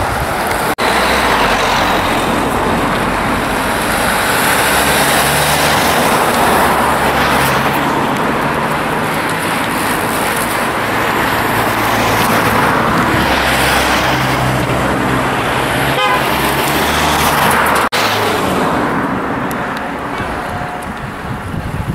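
Car engine running as a vehicle passes along the road, with low engine tones that shift in pitch, over a steady loud rushing noise.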